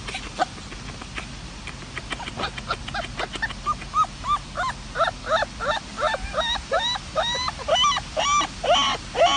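Puppy giving a run of short, high-pitched yips, about two a second, louder toward the end, after a few seconds of rapid light clicking.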